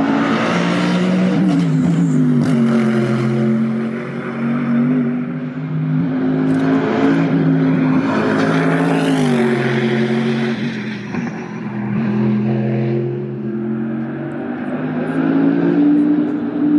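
Mercedes-AMG GT3 race car V8 engine sound at the track, loud and continuous, with the pitch rising and falling several times.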